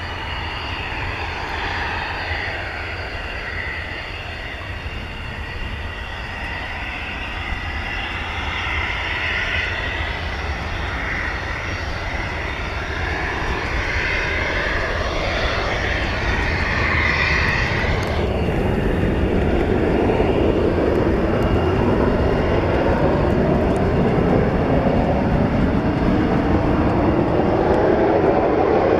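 Hawker Hunter T7's Rolls-Royce Avon turbojet running on the runway with a high whine. About two-thirds of the way in, the whine drops away and a louder, deeper rush builds as the engine comes up to power for departure.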